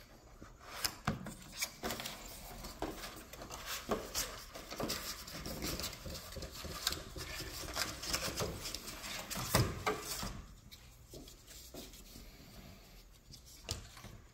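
Hands handling car wiper blades and their packaging on a windshield: rubbing, rustling and a quick run of plastic clicks and knocks, busy until about ten seconds in, then quieter with a few scattered clicks.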